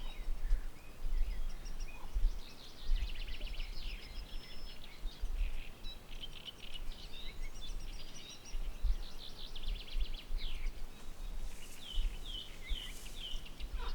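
Small songbirds chirping and trilling, with a run of four quick descending notes near the end, over gusty wind rumbling on the microphone.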